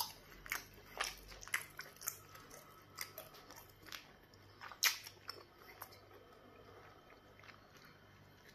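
Close-miked eating sounds of a person chewing a mouthful of pounded yam fufu with black soup: irregular wet mouth clicks and smacks, the loudest about five seconds in, then fewer and fainter.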